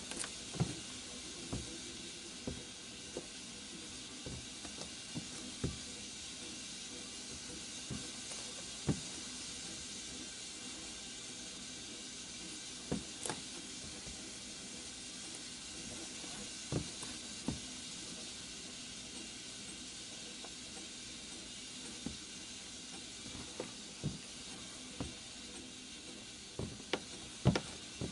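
Steady hiss of a steam radiator, with scattered light taps of Air Jordan 11 sneaker soles stepping and shifting on a wooden floor.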